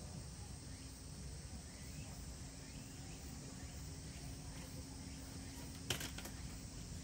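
Faint outdoor ambience with insects chirping and a low steady hum coming in just after the start. A sharp click about six seconds in.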